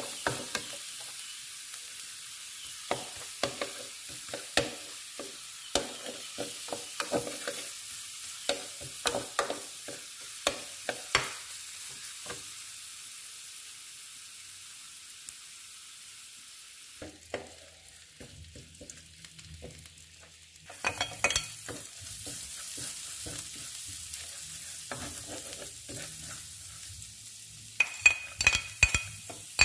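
Minced garlic and chicken sizzling in hot oil in a pan, with a metal spatula scraping and tapping against the pan in quick runs of strokes; the strokes thin out in the middle, and a low steady hum comes in a little past halfway.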